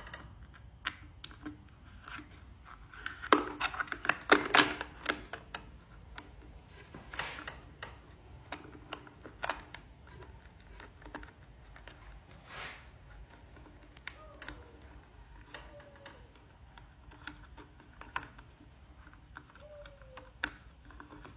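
Hands working a wire lead into a knot against a plastic container: scattered clicks and small rustles, with a cluster of louder clicks and scrapes about three to five seconds in.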